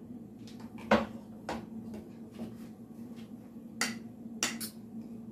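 A spoon clicking against a mixing bowl while flour is worked into shredded-potato pancake batter: a handful of sharp clinks, the loudest about a second in, over a steady low hum.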